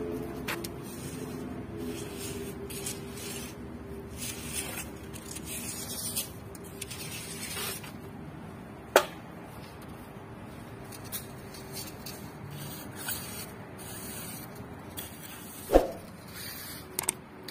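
Hands and a metal screed rail scraping over a damp sand-cement floor screed in irregular rasping strokes, with two sharp knocks, one about halfway through and a louder-looking one near the end, as the rail is handled.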